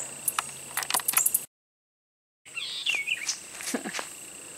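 Steady high-pitched insect drone at the creekside, with a few bird chirps and scattered light clicks. The audio cuts out completely for about a second in the middle.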